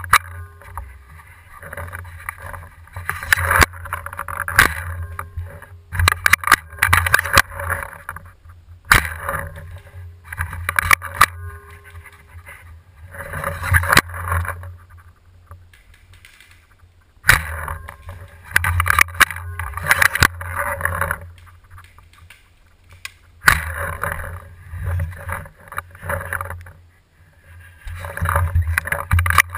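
Paintball marker firing sharp single pops and short quick runs of shots, heard close up from a camera mounted on the marker, over a steady low rumble and rustling from handling the gun.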